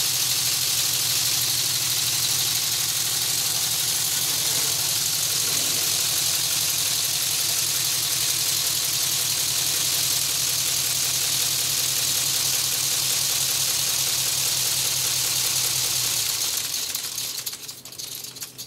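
Lego pneumatic inline-12 engine with a scotch-yoke crank running on compressed air: a steady hiss of air over a fast clatter from its cylinders and linkages. Near the end the hiss dies away and the engine runs down.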